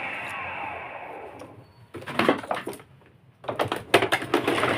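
Electrolux ProSilent vacuum cleaner motor winding down after switch-off, its whine falling in pitch and fading away over about two seconds. Then a run of sharp clicks and knocks from the machine being handled.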